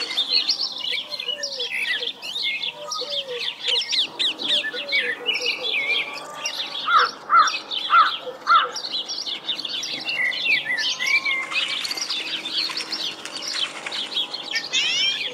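Many songbirds chirping and calling over one another, a forest birdsong ambience. A lower call repeats several times in the first few seconds, and a louder call sounds four times about halfway through.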